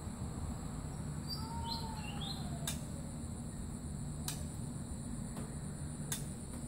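Oriental magpie-robin giving a short burst of call notes: a few quick chirps and a falling whistle about a second and a half in. A few sharp clicks follow.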